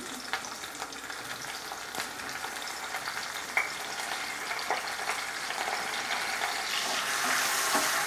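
Chopped onions sizzling as they fry in hot oil in a pan, with scattered light clicks; the sizzle grows gradually louder.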